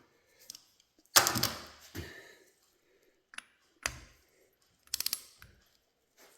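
Metal tools and parts being handled on a workbench: a sharp clank about a second in, then a few lighter knocks and a quick run of ratchet-like clicks near the end.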